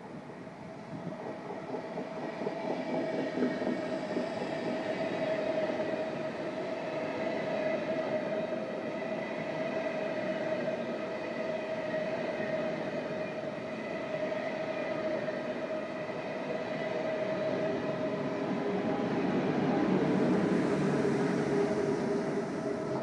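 SBB InterCity push-pull train running past the platform, driving trailer leading and an Re 460 electric locomotive pushing at the rear: a steady rolling rumble of wheels on rail with a held tone running through it, growing louder as the coaches pass and loudest near the end as the locomotive goes by.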